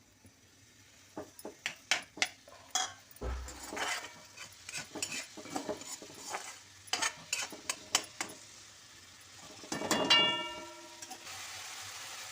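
A spatula stirring and scraping chopped vegetables and tomato in a pan, with many sharp clicks and knocks of utensil on metal. About ten seconds in something metal rings briefly, and near the end a steady sizzle of frying takes over.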